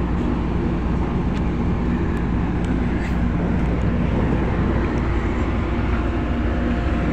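Tugboat's diesel engines running steadily under load while assisting a ship, a deep, even drone.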